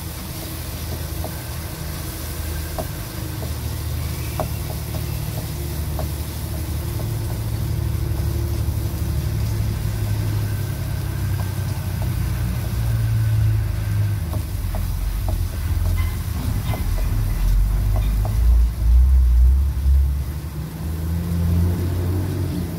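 A wooden spoon stirs a thick tomato and spice mixture in a nonstick wok, with light scattered taps of the spoon against the pan. Under it runs a low rumble that grows louder and is loudest near the end.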